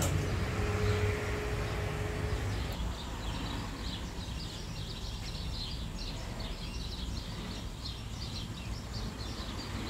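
A low engine rumble that dies away in the first few seconds, with a brief steady hum in it. Then small birds chirping rapidly and continuously over background noise.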